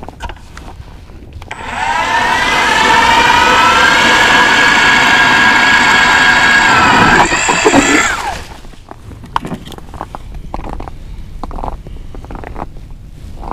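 StrikeMaster power ice auger drilling through the ice: the motor whine spins up about a second and a half in, runs steadily for about six seconds, drops in pitch and stops about eight seconds in. Scattered clicks and knocks of handling follow.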